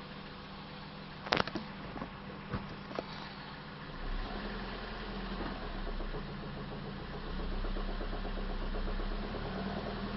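Ford Fiesta/Fusion 1.4 engine running at idle with a knock that the owner puts down to a failing crankshaft damper pulley. A few sharp clicks come in the first three seconds, and the engine grows louder from about four seconds in.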